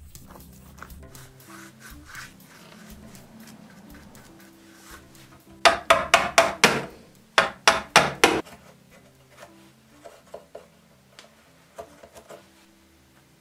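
A steel chisel scraping wood out of the hollowed inside of a driftwood log: a quick run of about ten scraping strokes, roughly four a second, lasting under three seconds, over soft background music.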